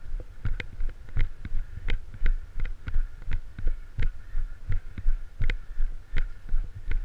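Footsteps of a GoPro wearer moving quickly on a concrete path, heard through the camera's body mount as even low thumps about three a second, each with a sharp click.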